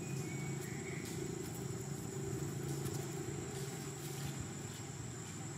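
Steady low motor-like hum with a thin, high, steady whine over it, and faint scuffs and rustles of young macaques tumbling in dry leaves.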